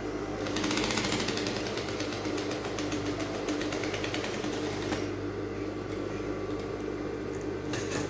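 Table-mounted industrial sewing machine stitching a fabric casing down along one edge of rectangle boning: a fast, even needle rattle for about four seconds, then only the motor's steady hum once the stitching stops. A short click comes near the end.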